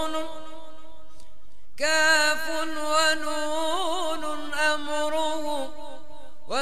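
Unaccompanied male voice chanting a religious supplication (ibtihal) in long wordless melisma. A held note breaks off about one and a half seconds in, then a new sustained phrase follows with wavering, ornamented turns.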